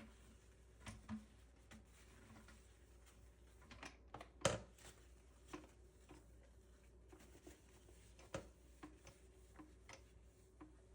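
Quiet room with scattered light clicks and taps of household objects being handled during cleaning, and one sharper knock about four and a half seconds in.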